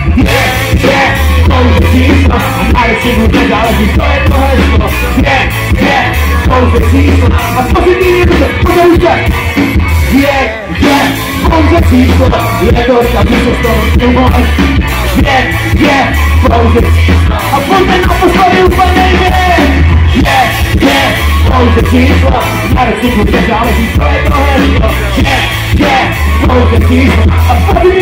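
Loud live band music over a PA system: a steady drum beat under a pulsing bass line, with a brief drop about ten seconds in.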